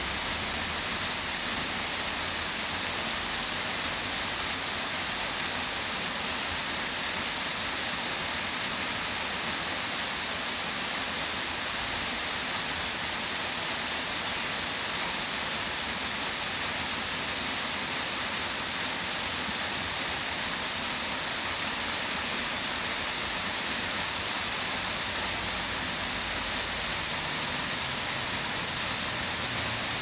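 Waterfall pouring down a rock face into a pool: a steady, even rushing hiss that never changes in level.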